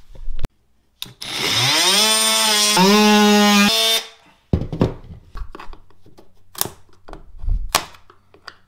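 Oscillating multi-tool buzzing as it cuts through a vinyl floor plank, spinning up quickly to a steady high buzz for about three seconds and then stopping. Several sharp knocks and clicks of the plank and tool being handled follow.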